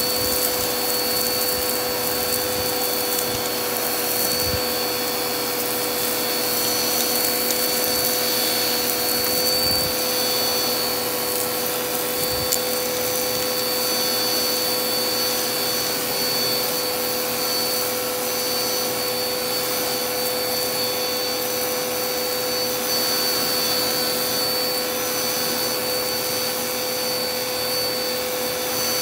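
Vacuum cleaner running steadily with its bare open hose sucking fluffy lint and fine dust out of carpet: a constant rush of air with a steady motor whine, and a few faint ticks of debris going up the hose.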